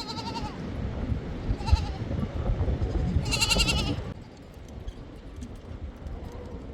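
A young sheep or goat bleating three times, high and wavering, the last call the longest, over a low rumble that stops about four seconds in.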